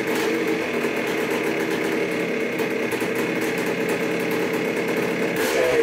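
1981 Yamaha YZ250's single-cylinder two-stroke engine idling steadily on a freshly rebuilt top end, with the choke off.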